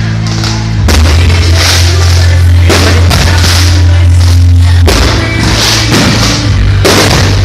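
Loud rock music with a drum kit, cymbal crashes about every two seconds and long held bass notes.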